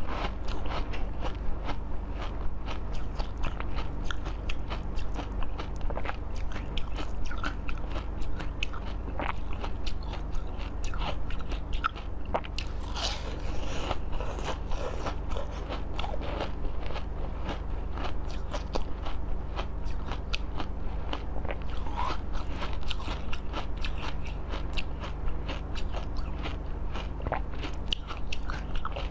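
Close-miked biting and chewing of a frozen white jelly dome with fruit pieces: many small crisp crunches and crackles as bits snap off, over a steady low hum.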